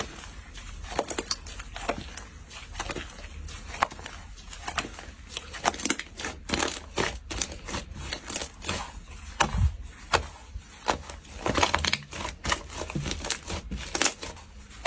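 Slime being pressed and squeezed, giving off irregular crackling pops and clicks that come thicker and louder in the second half.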